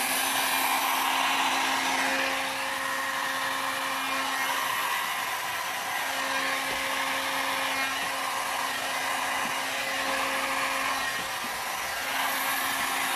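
Heat gun running steadily: a rush of hot air with a faint motor hum under it. It is a little quieter from about two seconds in and louder again near the end.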